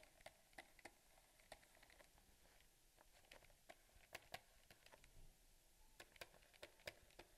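Near silence with faint, scattered clicks and ticks from a stylus tapping and scratching on a drawing tablet while handwriting.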